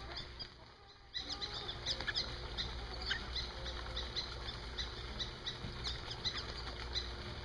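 Birds chirping: a steady run of short, high chirps several times a second, starting about a second in.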